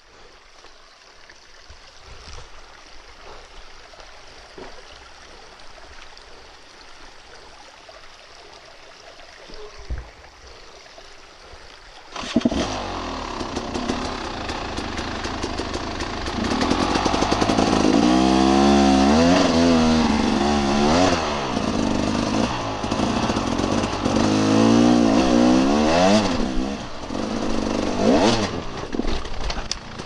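Dirt bike engine bursts into life about twelve seconds in after a quiet stretch, then revs up and down over and over.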